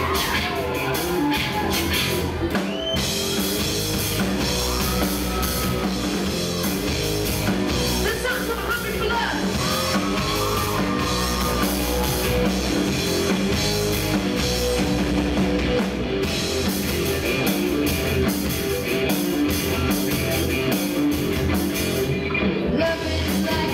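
Live rock band playing: drum kit, electric guitar and electric bass, with a lead singer's vocal lines coming and going.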